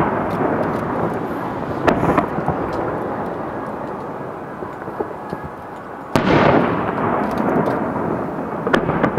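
Aerial firework shells bursting: a boom about two seconds in, a bigger one about six seconds in and a smaller one near the end, each followed by a long rumble that dies away slowly, with scattered crackles.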